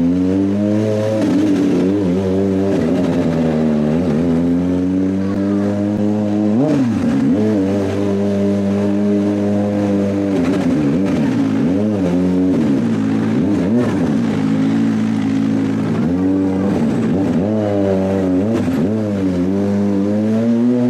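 Kawasaki ZX-25R's 250 cc inline-four engine pulling along at low speed with repeated throttle blips. The pitch swoops up and back down many times between steadier stretches, several blips in quick succession near the end.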